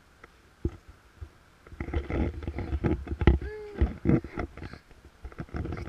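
Handling noise from a hand-held camera carried low over bark mulch: rubbing, low rumbling and thumps, densest in the middle, with a short voiced sound that rises and falls partway through.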